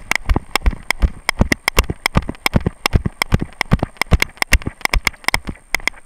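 Rapid, irregular knocking and clicking, about six or seven a second, from a camera harnessed to a dog's back as it is jolted with each of the moving dog's strides. It starts abruptly.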